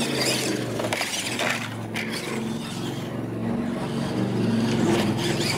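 Radio-controlled monster trucks racing on gravel: their electric motors and gears whine, stepping up and down in pitch as the throttle changes, over the crunch of tyres on gravel, with a sharp knock about two seconds in.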